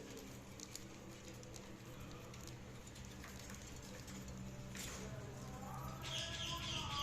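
Budgerigars chirping and warbling softly over a low steady hum. The chatter grows louder and busier from about six seconds in.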